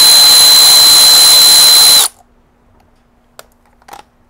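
Milwaukee Fuel cordless electric ratchet driving a Torx T30 bit, spinning a bolt out. It runs with a steady high whine over the motor noise and cuts off suddenly about two seconds in. Two faint clicks follow near the end.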